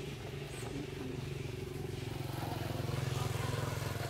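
A steady engine-like hum with a fine regular pulse, growing a little louder about two and a half seconds in.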